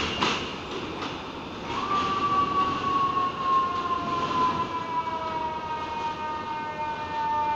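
Subway train pulling out of an elevated station, with sharp wheel knocks over rail joints near the start. From about two seconds in, a loud high tone slowly falls in pitch.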